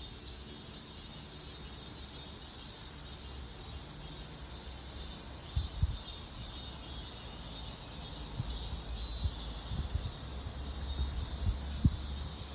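Insects chirring steadily in a high, gently pulsing drone. Low rumbling runs underneath, with several sharp low thumps on the microphone; the loudest come about six seconds in and near the end.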